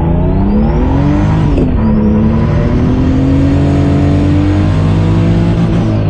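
Turbocharged BMW M50 straight-six accelerating hard from a launch. It revs up in first gear, drops in pitch at the shift to second about a second and a half in, then pulls up through the revs again. A thin high whine climbs along with the revs.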